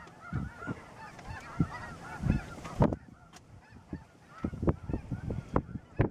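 A big flock of snow geese calling: a dense chorus of many overlapping high honks that thins out about three seconds in. Irregular low thumps run under it, the loudest just before the chorus thins.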